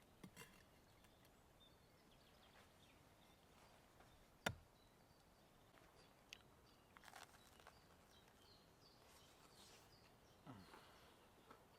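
Quiet outdoor ambience with faint, scattered bird chirps, broken by one sharp click about halfway through and a few softer knocks and rustles later on.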